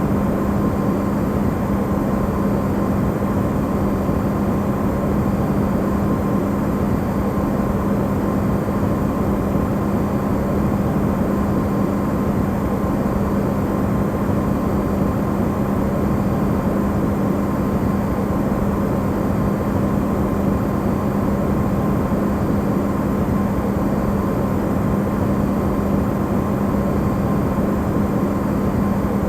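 Electrolux refrigerator running, recorded amplified: a steady, even rushing hum with a constant low drone in it and a fainter higher whine.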